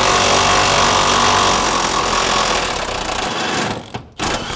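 Impact wrench hammering continuously on a rust-seized rear suspension bolt. It stops briefly about four seconds in, then fires again near the end, and the bolt still does not come loose: it has rusted to the inside of the bushing sleeve.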